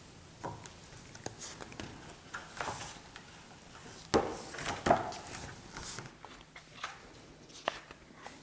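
Hardcover picture book being handled on a wooden table: covers and pages opened and turned, with scattered taps and rustles and two louder knocks about four and five seconds in.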